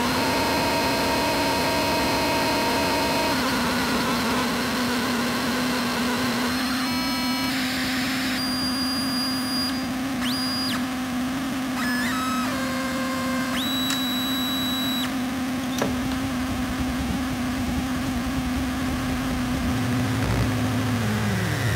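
Benjolin and Fourses synthesizers patched together, giving a dense electronic hiss over a steady low tone. From a third of the way in, high whistling tones switch on and off, some of them gliding upward. Near the end the low tone slides down and a deeper buzz takes over.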